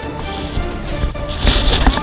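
Background music with a sustained melody; near the end a brief burst of broad noise rises over it.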